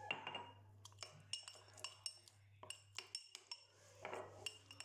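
Metal spoon stirring a flour-and-water paste in a glass bowl, clinking against the glass again and again with a light ring, with soft scraping in between.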